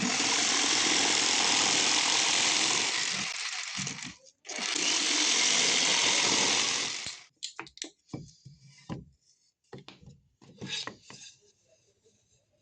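A power tool working wood, run twice: about four seconds, a brief stop, then about three more seconds, each run starting and cutting off abruptly. Scattered light knocks and taps of wood follow.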